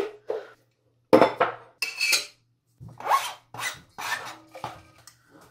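Chopped broccoli being scraped across a cutting board into a bowl: a sharp knock, then about a second in a run of short rasping scrapes, around seven of them.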